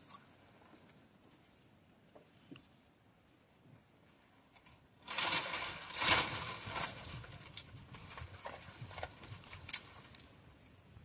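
Dry palmyra palm fronds rustling and crackling, with several sharp knocks, as a climber works in the crown cutting nungu (ice-apple) bunches. It starts suddenly about five seconds in, is loudest for the first two seconds, then thins to scattered cracks.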